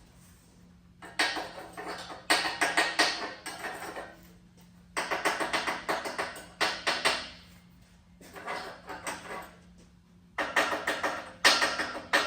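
Chipping hammer knocking slag off fresh welds on a steel ladder: four bursts of rapid metallic taps with short pauses between them.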